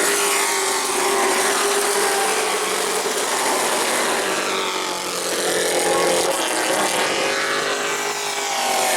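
A field of short-track race trucks running at racing speed. Several engine notes overlap, their pitches rising and falling as the trucks pass and throttle through the turns.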